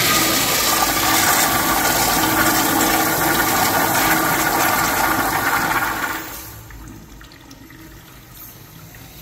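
American Standard toilet flushing: a loud rush of water that falls away about six seconds in to a quieter, steady wash as the flush ends.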